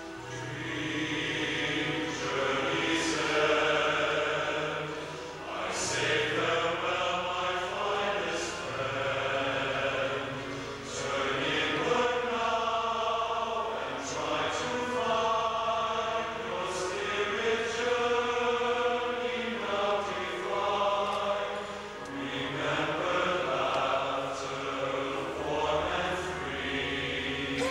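Large men's chorus singing in harmony, in long held phrases that swell and fall back.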